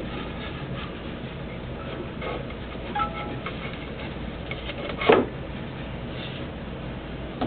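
Handling noise as a wooden workpiece is shifted on a ring-cutting jig: a few light knocks and one sharper knock about five seconds in, over a steady low hum.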